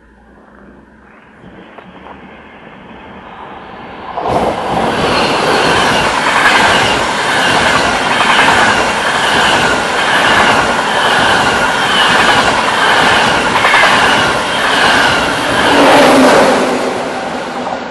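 FrecciaRossa ETR500 high-speed train passing at speed on the near track: a rising rush as it approaches, then about four seconds in a loud rush of wheels and air with a rhythmic beat about once a second as each car goes by, dropping away sharply near the end as the last car passes.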